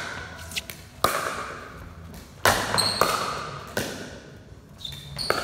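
Pickleball rally: sharp pops of paddles striking the plastic ball, the three loudest about a second and a half apart, each echoing in a large hall. Fainter taps fall between them.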